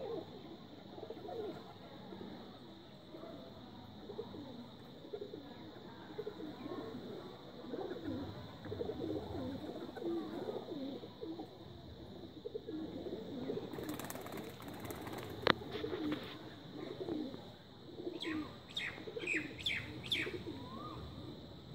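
Domestic pigeons cooing over and over in low, repeated calls. About two-thirds in there is a short flurry of noise with one sharp click, the loudest moment, and near the end a quick run of high chirps.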